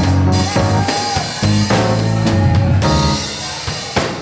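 Live gospel church music: keyboard playing held bass-heavy chords that change every second or so, with a drum kit hitting along.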